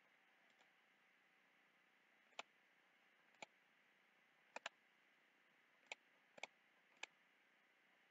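Faint computer mouse button clicks, about seven or eight single clicks spread unevenly over several seconds, with a quick double-click near the middle, as shapes are picked one at a time on screen.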